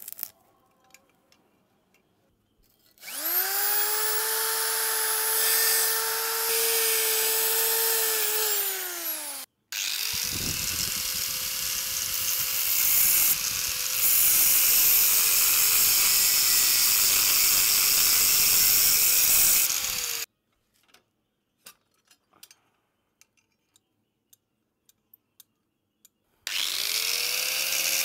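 Electric angle grinder with a thin cut-off disc. It spins up with a rising whine, runs for several seconds and winds down. It starts again and cuts into a steel ring with a harsher grinding noise under the whine, then stops suddenly. After a quiet pause with a few small clicks it spins up again near the end. A short crackle of arc welding is heard right at the start.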